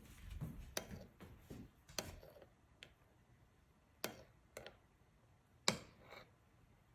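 A handful of faint, sharp clicks and knocks, irregularly spaced about a second or more apart, the loudest about three-quarters of the way through, with low handling rumble in the first second.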